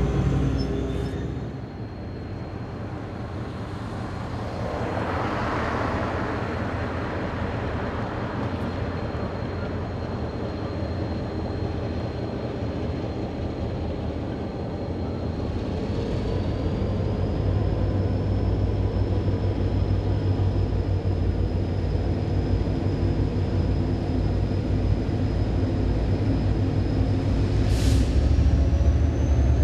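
Diesel-electric locomotive hauling the Sunlander passenger train at low speed, its engine running steadily. About halfway through, a whine rises in pitch and the engine grows louder as the train draws near. There is a short hiss near the end.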